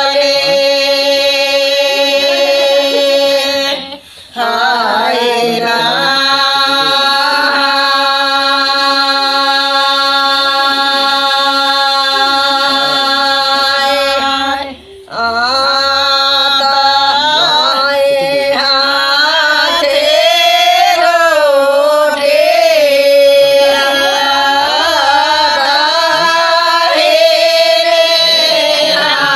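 Two women singing a Bagheli wedding song (vivah geet) without instruments, drawing out long wavering notes, with brief breaks for breath about four and fifteen seconds in.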